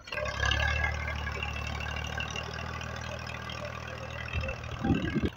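Massey Ferguson 240 tractor's three-cylinder diesel engine running steadily under load as it pushes soil with its front blade, with a short louder burst near the end.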